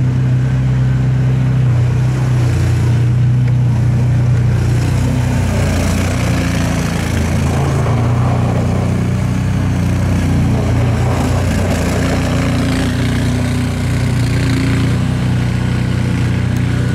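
Engine of a small amphibious 4x4 utility vehicle running steadily as it is driven over a snowy road, with extra hiss from the wheels and engine as it passes close in the middle.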